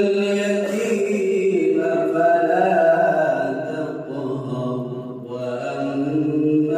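A man reciting the Quran in the melodic tajweed style, holding long drawn-out notes that glide slowly. The pitch sinks lower around the middle and climbs again near the end.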